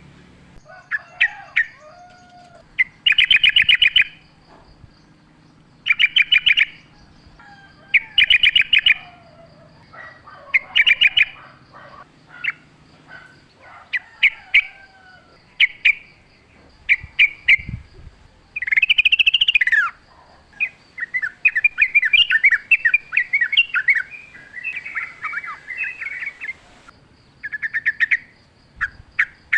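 Yellow-vented bulbul (trucukan) singing: short, bubbly, liquid phrases repeated every second or two, then a longer chattering run about two-thirds of the way through.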